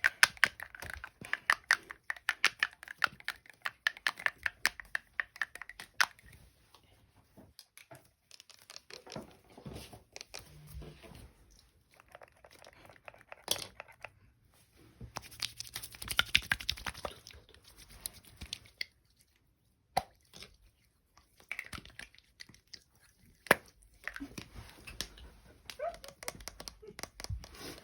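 Close-miked crinkling, tearing and crunching made for ASMR: rapid runs of crackles in several bursts, with short quiet pauses between them.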